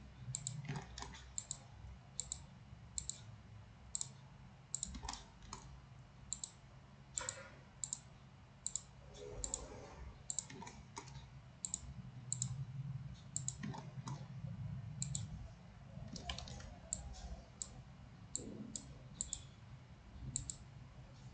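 Computer mouse button clicking at an uneven pace, about one or two sharp clicks a second, as points are placed one by one with a MultiCut tool. A faint low steady hum runs underneath.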